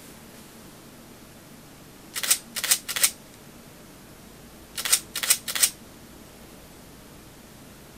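Pentax DSLR shutter and mirror firing at 1/125 s: three releases about half a second apart, each a quick double clack, then after a pause a second group of three.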